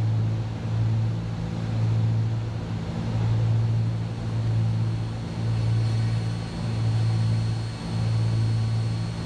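Cessna 310Q's twin six-cylinder piston engines and propellers droning steadily, heard inside the cockpit. The low drone swells and fades in a slow regular pulse about every second and a half.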